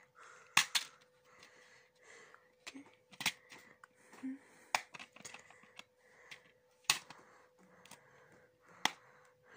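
Scattered sharp plastic clicks and light rustling from a DVD disc being handled in its open plastic case, about one click every second or two.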